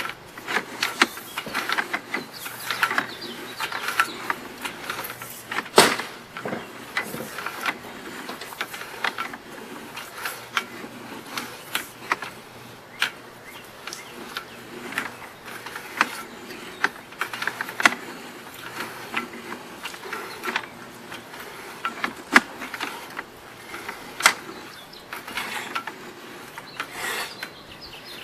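Sewer inspection camera's push cable being pulled back by hand, with irregular clicks, rattles and rubbing from the cable and its reel, and a sharper knock about six seconds in.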